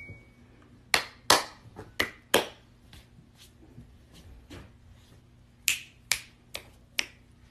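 Finger snapping: a dozen or so sharp snaps, several in quick pairs.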